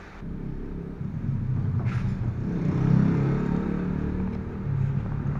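A motor vehicle's engine running with a low rumble, its pitch shifting and swelling about three seconds in. A short sharp click about two seconds in.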